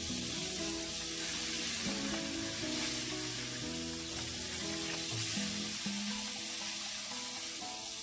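Cooking oil sizzling steadily as dynamite lumpia (Anaheim peppers stuffed with beef and cheese, rolled in lumpia wrappers) fry in a pot at medium heat. Background music plays underneath.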